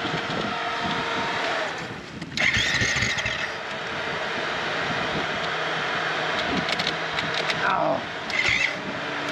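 Motorcycle engine running with a steady hum, with two short louder stretches of noise about two and a half and eight seconds in.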